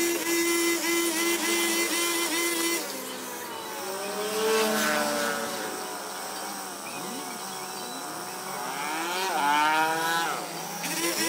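Small petrol engine of a grass-cutting machine running fast. From about three seconds in, its pitch sags and climbs again several times, as when it is loaded and revved, and it settles back to a steady high pitch near the end.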